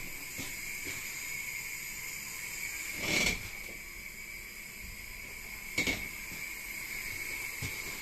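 Steady hiss with a thin high whine inside a standing railway carriage. Two short bursts of noise stand out, about three and about six seconds in.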